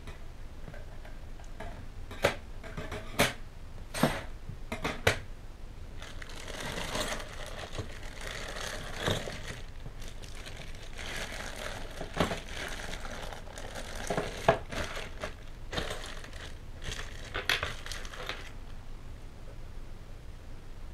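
Metal Meccano parts set down on a wooden table in a few sharp clacks, then plastic bags of parts crinkling and rustling as they are handled, with occasional metal clinks.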